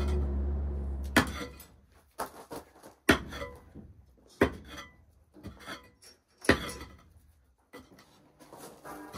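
Pick mattock striking into a compacted gravel and dirt floor, a sharp hit every second or so with scraping and loose stones between the blows. A low steady hum fades out in the first second or so.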